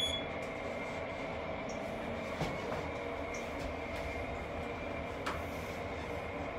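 A short electronic beep as a lift's floor button is pressed, over a steady mechanical hum, with two light clicks a couple of seconds apart later on.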